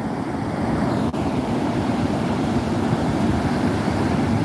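Heavy ocean surf breaking on a beach: a steady, low rushing wash of waves.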